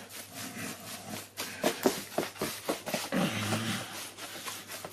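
Hands kneading and squeezing coarsely ground pork sausage meat in a plastic tub, working the salt and pepper through it: a string of short, irregular wet squelches and slaps.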